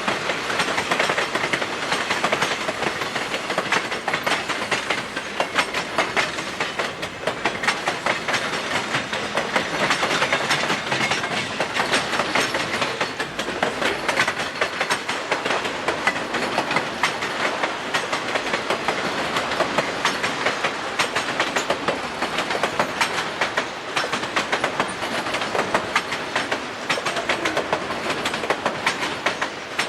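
A train's cars rolling past at steady speed, their wheels clicking over the rail joints in a continuous rapid clatter.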